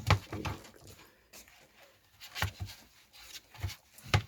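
A one-week-old puppy being weighed on a scale: irregular taps and knocks with light scrabbling and rustling as it squirms, the loudest knock just after the start and another near the end.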